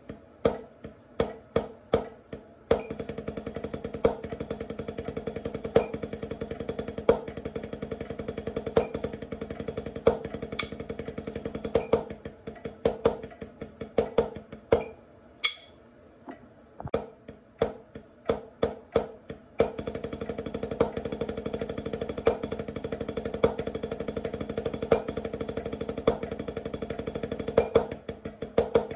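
Snare drum played with sticks. Passages of separate strokes alternate with two long, even rolls, and the rolls carry louder accented strokes about every second and a half. The drum's head rings under each stroke.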